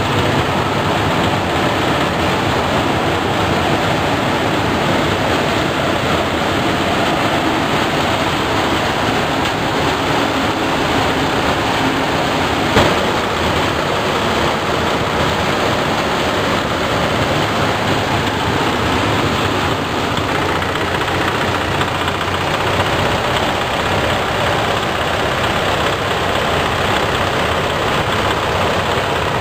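Animal-manure grinding machine running at a steady, even level while dried manure is fed into its hopper; one short knock about 13 seconds in.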